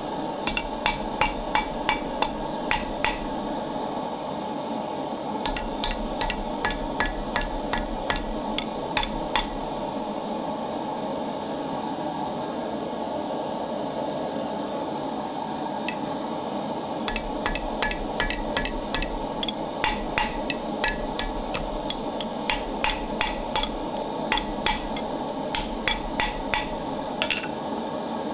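Hand hammer forging a red-hot bar of 15 mm O1 tool steel on an anvil into a pole lathe hook. Quick strikes, about three a second, each with a short metallic ring, come in three runs broken by pauses of about two and about seven seconds, over a steady background noise.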